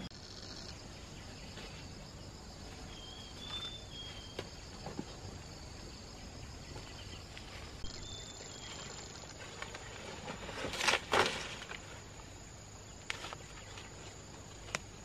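Insects trilling steadily, with a few short bird chirps. A short, loud burst of noise comes about eleven seconds in.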